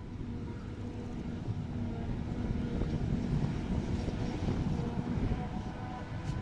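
Heavy diesel farm machinery running steadily: a low engine rumble with a steady hum on top.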